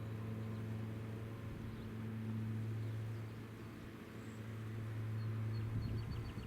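Sentry 3V8 outdoor warning siren winding down, a steady low hum, with a few short bird chirps near the end.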